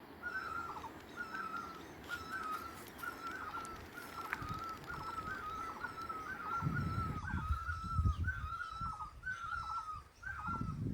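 A bird calling over and over, the same short note that falls away in pitch, about once a second. A low rumble comes in about seven seconds in.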